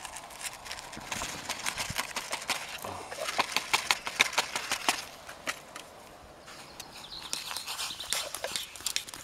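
Powdered soup being tipped from a crinkling paper sachet into a metal pot of hot water, a dense run of rustles and small clicks, then a spoon clinking and scraping around the pot as the soup is stirred near the end.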